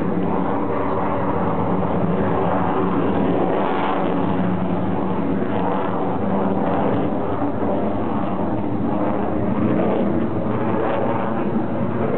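JAS-39 Gripen fighter jet in flight, its single Volvo RM12 turbofan making loud, steady jet noise whose tone slowly shifts up and down.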